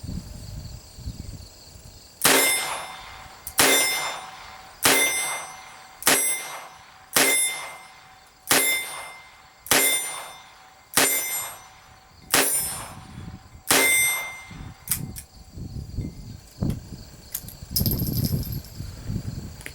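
Ruger GP100 .22 LR revolver firing ten shots at a steady pace, about one every 1.3 seconds, each sharp crack followed by a short ringing tail. Then come a few light metallic clicks and a brief rattle near the end.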